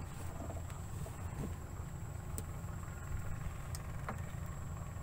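Small stern-mounted petrol engine of a fishing boat running steadily at low throttle, a low even rumble. A couple of light knocks sound over it, about two and a half and four seconds in.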